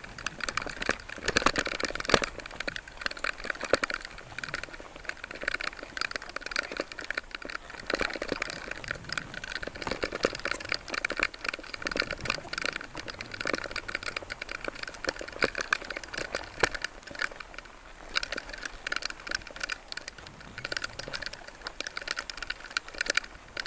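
Mountain bike rattling over a loose gravel and scree dirt track, tyres crunching on the stones, in a dense, uneven run of small clicks and rattles.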